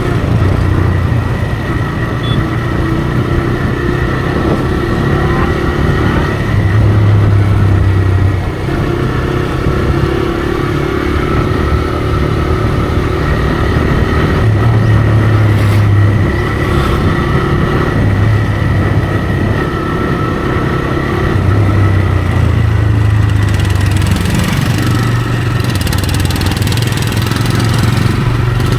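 TVS Raider 125's single-cylinder engine running under way through its stock exhaust, loud and steady, its low note swelling a few times as the throttle opens.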